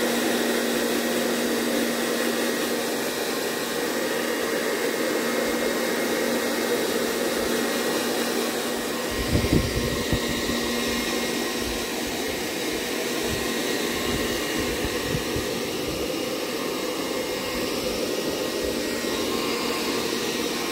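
Hair dryer blowing steadily with a constant whirring hum. A few low bumps about nine to ten seconds in, with a couple more shortly after.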